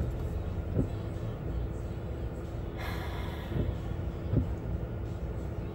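Steady engine and road rumble inside a moving car's cabin, with one short breath about three seconds in.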